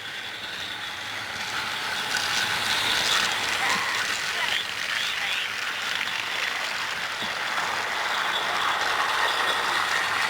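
Several battery-powered toy train engines running together on plastic track: a steady whir of small motors and gears with rattling wheels, growing louder over the first few seconds as they come closer.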